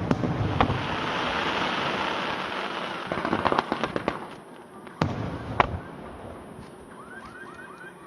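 Fireworks going off: a bang, then a few seconds of hissing, crackling bursts with a cluster of crackles, then two sharp bangs about half a second apart. Near the end a faint short chirp repeats about five times a second.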